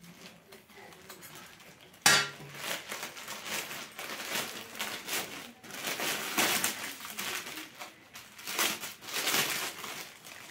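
Plastic courier mailer and clear poly bag rustling and crinkling as a parcel is opened and a plastic-wrapped dress is pulled out. The sound starts suddenly about two seconds in and goes on in irregular crackles.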